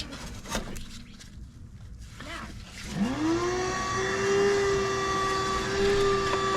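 A few light metallic clicks and knocks, then about three seconds in an electric motor spins up with a quickly rising whine and runs on steadily.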